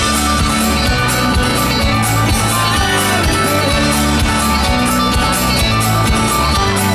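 Live folk band playing through the stage PA: strummed acoustic guitar over bass notes and a steady beat.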